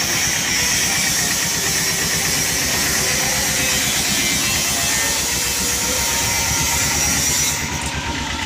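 Tata Ace mini truck's engine idling steadily, with a steady high hiss over it that cuts off near the end.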